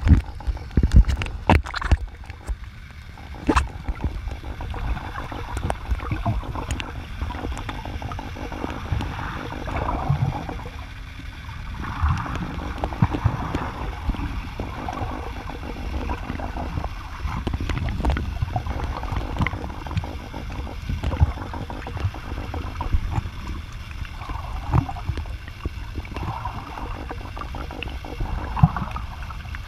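Muffled underwater sound picked up by a camera under the water: a continuous low rumble and water sloshing, with scattered sharp clicks and knocks, several of them in the first few seconds.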